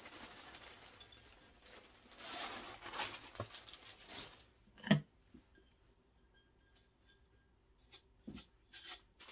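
Loose potting mix rustling and pattering as it is scooped and poured, then a single sharp knock about five seconds in, followed by a few faint clicks.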